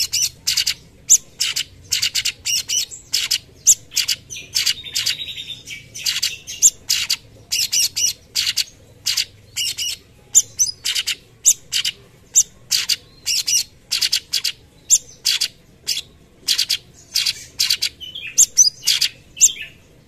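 Cucak cungkok (orange-bellied leafbird) singing in 'tembakan' style: a rapid, unbroken string of short, sharp, high-pitched call notes, about two to four a second. A longer warbled phrase comes about four to six seconds in.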